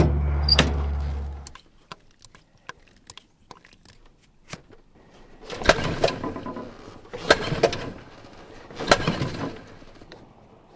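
A motor running with a steady low hum cuts off about a second and a half in. Scattered light clicks follow, then three rough scraping noises about a second and a half apart.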